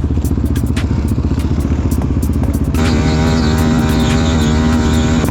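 Quad bike engines idling with a fast, even pulse. About two and a half seconds in, a steady held tone with a rich set of overtones joins in and carries on.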